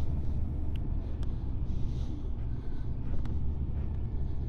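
Motorcycle engine running steadily at low road speed, heard from on the bike itself, with a hiss of road and wind noise.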